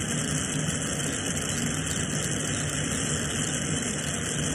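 Glassworking bench torch burning steadily, a constant hiss of flame and gas with a low hum beneath.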